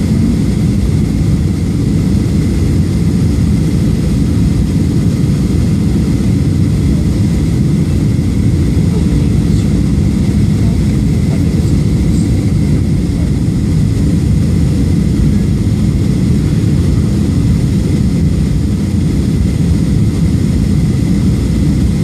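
Steady low rumble of a Southwest Airlines Boeing 737 on approach with flaps extended, jet engines and airflow heard from inside the passenger cabin.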